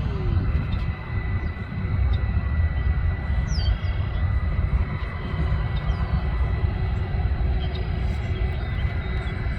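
Steady rumble of jet airliner engines carrying a thin, steady high whine. A few short falling bird chirps come through about halfway.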